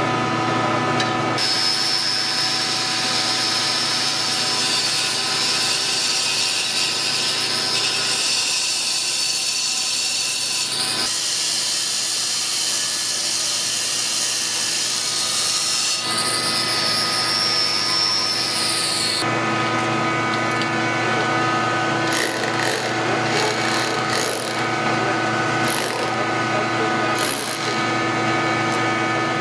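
Angle grinder cutting into masonry with a high steady whine that winds down about two-thirds of the way in. A cordless Milwaukee rotary hammer with a chisel bit then chips at the wall in short, rapid bursts.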